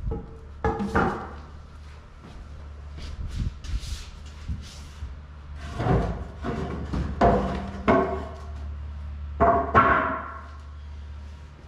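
A series of knocks and bangs, a few of them ringing briefly: one about a second in, several between six and eight seconds, and the loudest near the end. A steady low hum runs underneath.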